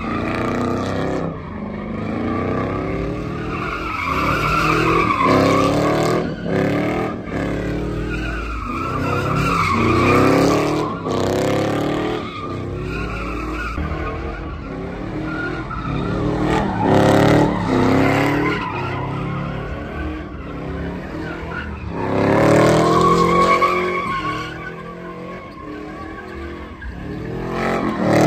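Pickup truck doing donuts: its engine revs hard in surges every few seconds, pitch rising and falling, while the rear tyres squeal and skid continuously on the asphalt.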